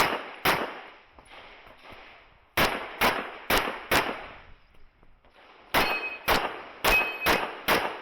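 Handgun shots fired in quick strings: two in the first half second, four about half a second apart near three seconds in, and five more from about six seconds on. A brief metallic ring follows some of the shots.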